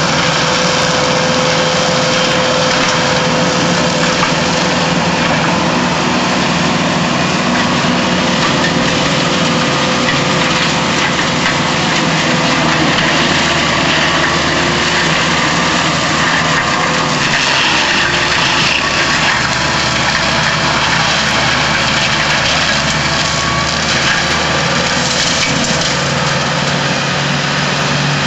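Tractor engine running under load to drive a forestry mulcher with free-swinging forged steel hammers on a spinning rotor, shredding brush and branches; a steady, loud mix of engine and rotor noise.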